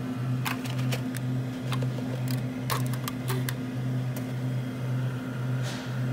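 Plastic drinking straw pushed through a fountain-drink cup's lid and jabbed around, giving a scattered series of sharp plastic clicks and squeaks. Underneath runs a low droning tone that pulses about twice a second.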